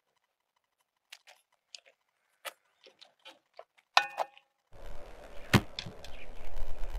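Faint crisp clicks as a knife cuts through a baked egg-and-cheese dish in a cast-iron pan, then a sharp metallic clink with a brief ring about four seconds in, as the knife strikes the pan. After that comes steady outdoor background noise and a single sharp knock as tableware is set down on the table.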